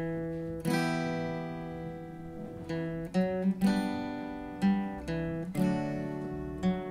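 Acoustic guitar strumming chords, with a fiddle bowing sustained notes along with it. The chords are struck roughly once a second and ring on in between. There is no singing.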